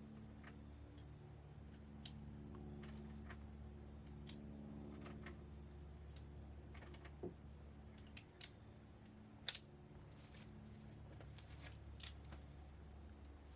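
Faint, scattered metallic clicks and clinks from handling a stainless .357 Magnum revolver, the sort made while working the cylinder and loading cartridges, with the sharpest click about nine and a half seconds in. A faint steady low hum runs underneath.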